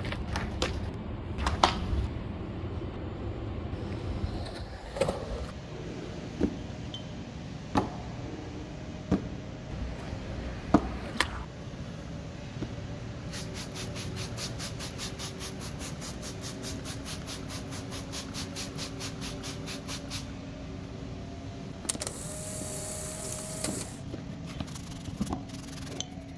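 A few sharp knocks of things set down on a plastic mat, then a plastic trigger spray bottle pumped quickly, about five squirts a second for some seven seconds, spraying cleaner onto metal skateboard trucks. A hiss lasting about two seconds follows near the end.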